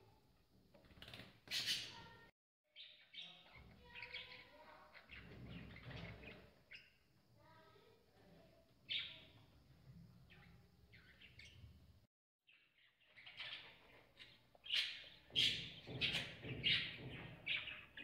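Budgerigars chirping: short, sharp calls now and then, then a quick run of chirps in the last few seconds.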